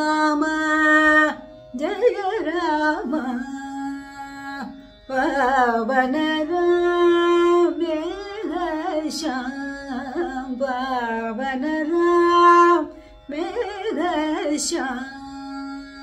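A woman singing a Carnatic devotional song in raga Yaman Kalyani, held notes alternating with wavering, ornamented phrases, broken by two short breaths. A steady drone sounds beneath the voice.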